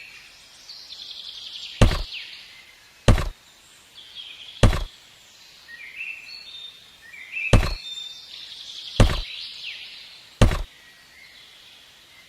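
Six sharp knocks, one to three seconds apart, with faint high chirps between them.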